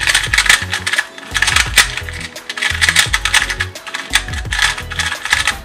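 Rapid clacking of a stickerless magnetic 2x2 speed cube being fast-turned by hand, its plastic layers snapping into place in quick irregular clicks. Background music plays underneath.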